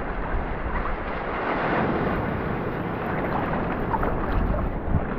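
Ocean water rushing and splashing around a camera at the surface, with low wind rumble on the microphone.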